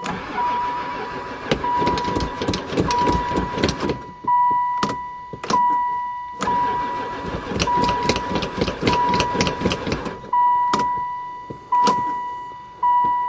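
Van's starter cranking the engine over in two long bursts without it firing, the engine turning but not catching; it has sat for four years and may have no fuel. A high steady beep repeats about once a second throughout, and there are single clicks between the bursts.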